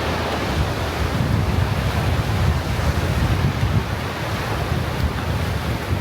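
Ocean surf washing onto the beach, with strong wind buffeting the microphone as a constant low rumble.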